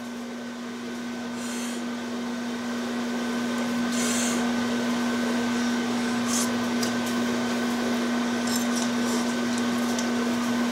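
Microwave oven running with a steady electrical hum, with a few short, high hissing noises over it.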